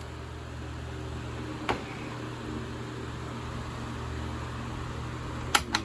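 Cool Breeze 12-inch oscillating table fan running with a steady motor hum and rush of air, with a single click about two seconds in. Two sharp clicks near the end are the fan being switched off, and the sound begins to fall away as it starts to spin down.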